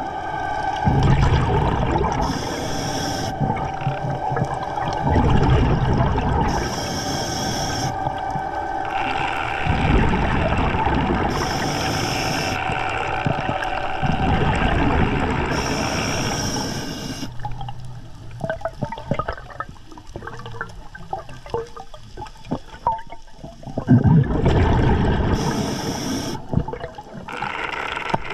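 A scuba diver breathing through a regulator underwater, slow and regular: a short hiss on each inhale and a rumbling gush of exhaust bubbles on each exhale, about every four to five seconds. A steady whine runs under the first two-thirds and then stops, followed by several seconds of rapid clicking and crackling.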